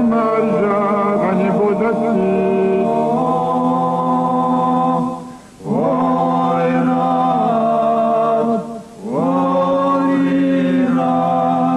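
A group of men singing a North Caucasian folk song a cappella: long held phrases with a gliding melody over a steady low drone. The singing breaks off briefly for breath about five and a half seconds in and again about nine seconds in.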